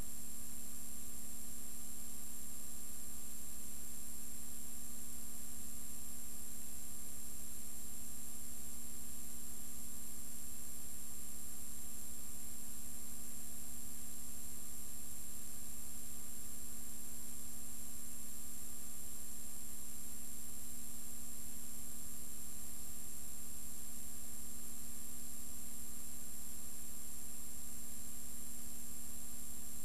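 Steady hiss and electrical hum with a few constant tones, unchanging throughout and with no other sounds: the noise floor of an empty soundtrack on a transferred silent film.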